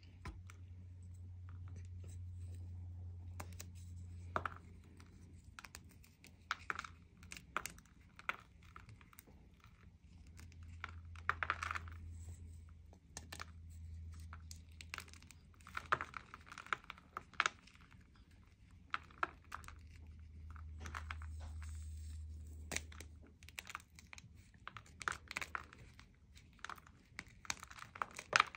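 A block of gym chalk coated in green glitter being snapped and crumbled by hand into a plastic tub: many crisp cracks and crunches as pieces break off and fall.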